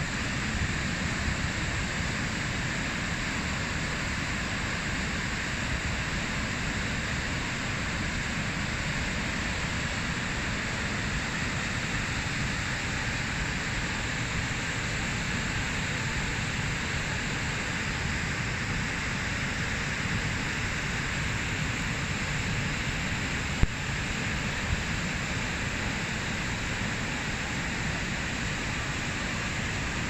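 Afqa waterfall, a large cascade pouring from under a stone arch into its plunge pool, making a steady, even rush of falling water. One brief knock sounds about two-thirds of the way through.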